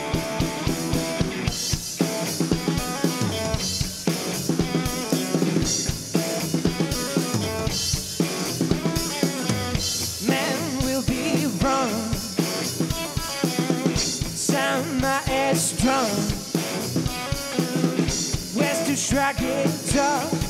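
Live garage rock from a guitar-and-drums duo: a Squier Stratocaster electric guitar played over a full drum kit, with bass drum and snare hits throughout.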